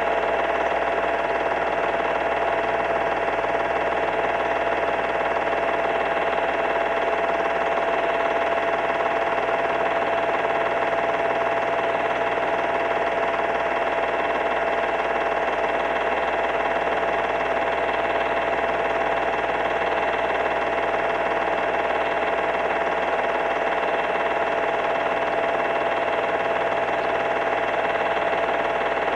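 Steady, unchanging mechanical hum and hiss with a few constant tones in it.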